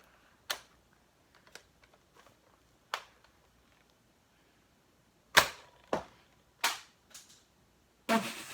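Adventure Force XL10 toy pump-action shotgun: a few light handling clicks, then a sharp firing snap about five seconds in, followed by two more knocks less than a second apart. A longer clatter comes near the end.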